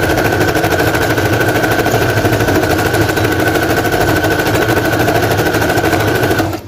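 Domestic electric sewing machine stitching at a steady fast speed, a rapid even needle rhythm over a steady motor whine, as it runs several rows of stitches over the folded end of an elastic band to anchor it firmly. It stops shortly before the end.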